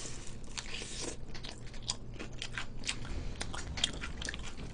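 Crispy battered fried chicken (BBQ Golden Olive chicken) being bitten and chewed close to the microphone: a run of irregular, crisp crunches, several a second.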